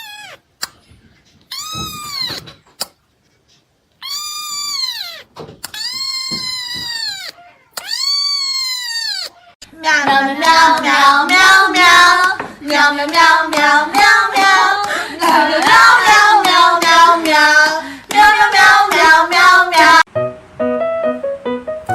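A cat meowing: four high, drawn-out meows, each rising then falling in pitch, about a second apart. About halfway through, loud music takes over.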